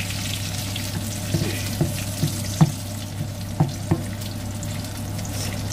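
Salmon frying in oil in an aluminium pan, a steady sizzle over the low hum of a kitchen extractor fan. A spatula knocks against the pan about six times in the middle as the fish is moved.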